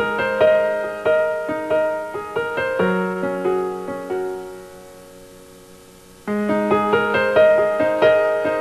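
Background music: a solo piano playing a slow melody of struck, decaying notes. The phrase dies away around the middle, and a new phrase begins about six seconds in.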